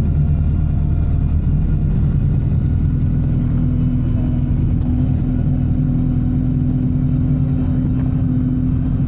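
Alexander Dennis Enviro 200 bus engine running steadily, with a faint high turbocharger whine that comes and goes.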